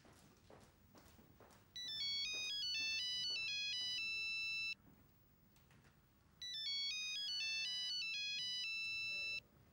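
Mobile phone ringing with an incoming call: an electronic ringtone melody of quick stepping notes, played twice for about three seconds each, with a short pause between.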